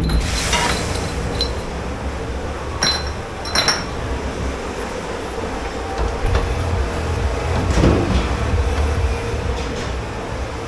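Steady low rumble of commercial dish-pit machinery, with dishes and glassware clinking a few times and a duller knock near the end.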